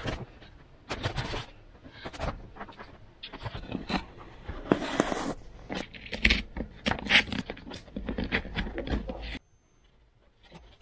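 Craft knife cutting and scraping foam, with hands rubbing and pressing foam model-plane parts: irregular scrapes, squeaks and small clicks. The sounds stop about nine seconds in, leaving near quiet.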